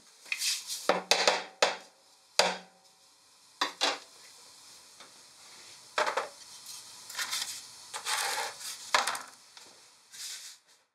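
A wooden higashi mould knocked on the work table in a quick run of sharp wooden knocks to loosen and release the pressed sugar sweets, with one more knock about six seconds in. After that come softer scraping and rubbing sounds as the dry sugar pieces are handled on a tray.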